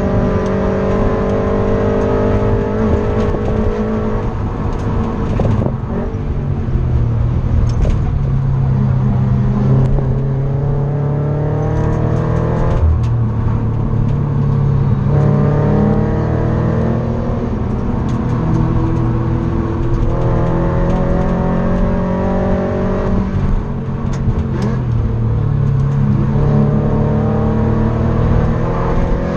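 Subaru BRZ's flat-four engine heard from inside the cabin while driven hard, revving up through the gears: the pitch climbs steadily in each gear and drops back at each gear change, several times over.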